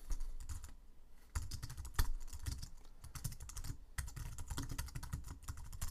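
Typing on a computer keyboard: quick runs of key clicks with short pauses, and one louder keystroke about two seconds in.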